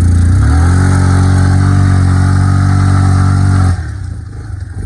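Yamaha Kodiak 450 ATV's single-cylinder engine at full throttle on an uphill climb in two-wheel drive. The revs rise for about half a second, hold steady and high, then drop away near the end as the throttle closes.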